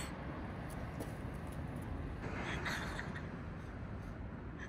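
Steady outdoor background noise: a low rumble with a light hiss over it, and no distinct event.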